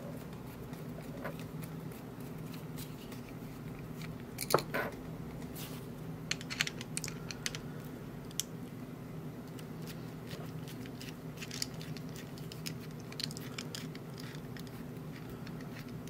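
Small metal clicks and scrapes of a screwdriver working the screws at the back of a brass mortise lock cylinder as it is taken apart, with a sharper clack about four and a half seconds in. A steady low hum sits under it.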